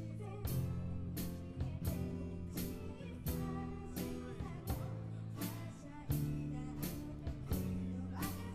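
Live band playing with guitar and drums, held chords over a steady drum beat.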